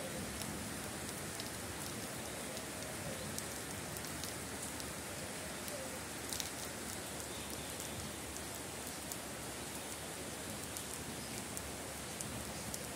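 Steady rain falling on garden plants and standing water, with scattered light ticks of individual drops.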